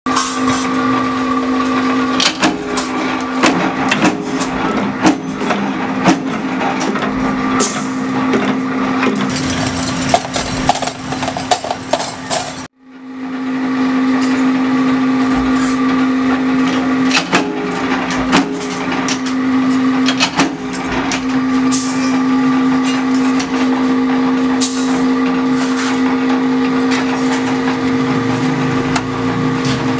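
Mechanical power press running with a steady hum, with irregular clanks and clicks as its die punches teaspoon blanks out of steel sheet and the metal is handled. The sound cuts out suddenly for a moment about halfway through, then carries on the same.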